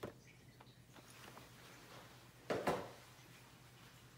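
A cardboard grocery box being handled and set aside: one short rustling knock about two and a half seconds in, over a faint low hum.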